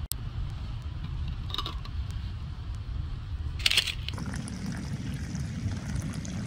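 Hot water poured from a metal kettle into a plastic mug of ground coffee, splashing and foaming. A steady low rumble runs underneath, and there is a short sharp knock just past halfway.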